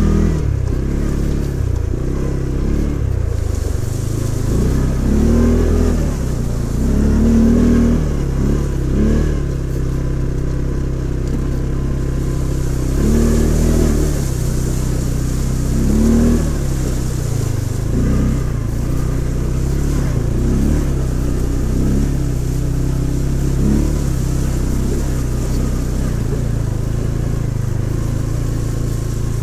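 ATV engine running at low speed, rising and falling repeatedly with the throttle as the quad drives through a shallow, stony river, with a hiss of water splashing under the wheels.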